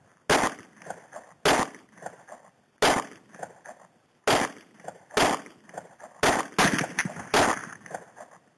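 Semi-automatic pistol being fired about nine times in slow single shots, each sharp report trailing off with a short echo. The first five shots come a second or more apart, and the last four come faster near the end.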